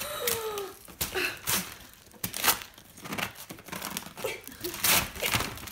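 Cardboard box and paper packaging being torn and crumpled by hand as a shoebox is pulled out of it, in irregular rustling and ripping bursts.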